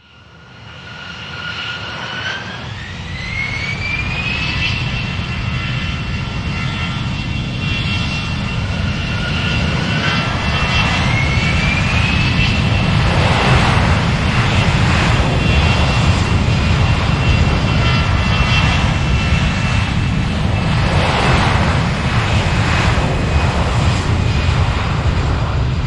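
Jet airliner's turbofan engines spooling up for takeoff. A rising whine climbs twice, about two seconds in and again about ten seconds in, then holds at a steady high pitch over a heavy, loud low rumble that builds quickly at the start.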